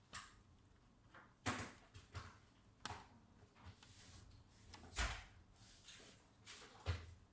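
Irregular small clicks and knocks, about ten of them, from hands handling a laptop and its parts during a RAM upgrade. A couple of louder knocks come about a second and a half in and about five seconds in, the second with a dull thud.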